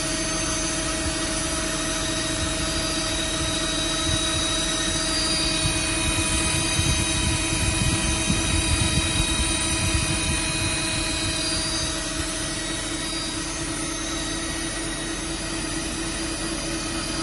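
Voumard 200 CNC internal grinder running, a steady machine whine made of several constant tones over a low rumble. The rumble grows louder about halfway through, then eases off a little after the middle.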